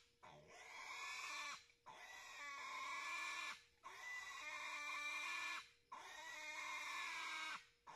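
Piglet squealing in four long, high screams of nearly two seconds each, with short breaths between, in distress as it is held down and castrated.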